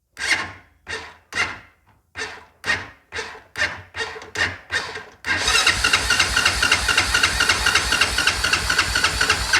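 Honda Foreman ATV engine being turned over by its electric starter: about ten short separate cranks, two a second, then from about five seconds in continuous cranking with a steady whine that begins to fade near the end. The owner takes the faltering cranking for a weakening battery.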